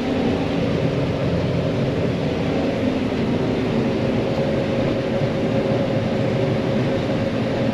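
John Deere 9500 combine running steadily while harvesting corn, an even machine drone with a low hum.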